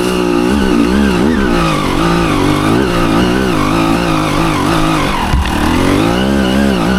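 Dirt bike engine revving up and down in quick swells as the throttle is worked under load on a slick hill climb. The pitch dips briefly a little over five seconds in.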